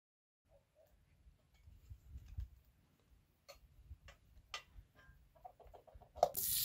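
Metal pots and utensils being handled, giving scattered light clicks and knocks over a faint low rumble. A quick run of clicks comes about five and a half seconds in, then a sudden louder rushing noise starts just before the end.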